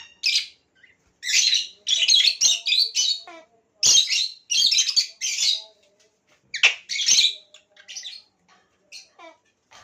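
Pet lovebirds giving harsh, shrill, chattering squawks in quick runs, with fainter short calls in the last couple of seconds.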